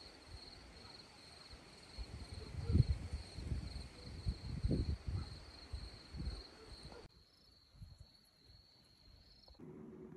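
Crickets chirping in a steady high trill, with low thumps and rumble on the microphone, loudest a few seconds in. Near the end the crickets stop and a steady low hum takes over.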